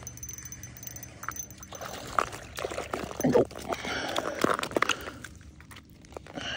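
A walleye being hauled up out of an ice-fishing hole: water splashing and sloshing in the hole, then the fish flopping on wet, slushy ice, loudest about three seconds in.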